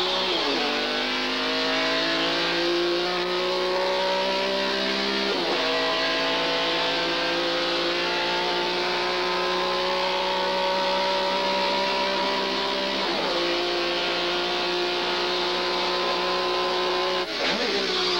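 A motor vehicle's engine accelerating through its gears: the pitch climbs slowly in each gear and drops sharply at each shift, right at the start, about five seconds in, about thirteen seconds in and again near the end.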